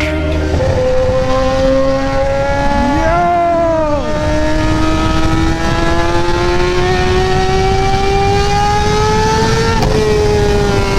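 Kawasaki ZX-10R's inline-four engine under hard acceleration, its pitch climbing steadily through a long pull. The pitch dips and recovers about three seconds in and drops again near the end, as it changes gear.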